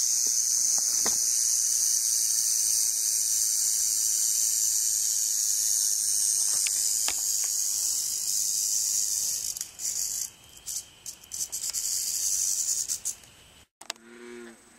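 A rattlesnake's rattle buzzing as a steady high hiss, then breaking into short irregular bursts after about ten seconds and stopping near the end. Soft music begins in the last second.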